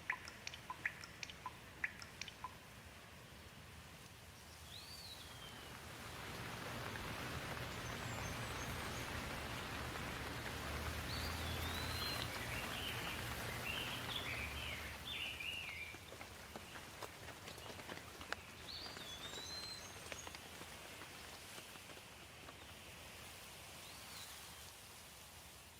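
Rain falling, swelling from about six seconds in and easing off toward the end, with separate drops dripping in the first couple of seconds. A small bird chirps several times over the rain.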